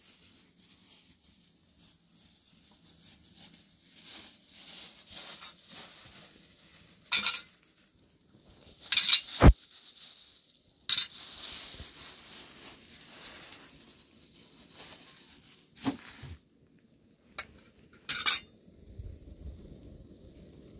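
Metal cookware and utensils clinking and clanking: about six sharp knocks spread over the stretch, with a faint hiss between them.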